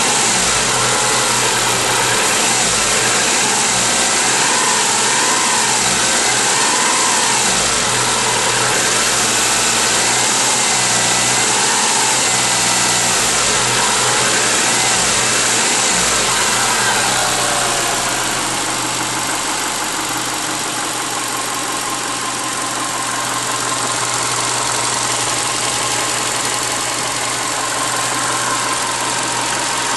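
Subaru EJ202 2.0-litre flat-four running hot on 10W-40 oil, with a knock that the owner attributes to the fourth cylinder. It wavers in pitch at first, then settles steadier and a little quieter about two-thirds of the way through.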